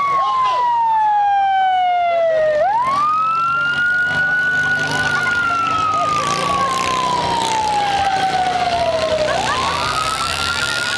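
Police-style siren wailing slowly: the pitch sinks steadily for several seconds, sweeps quickly back up, holds high, then sinks again, about two and a half cycles.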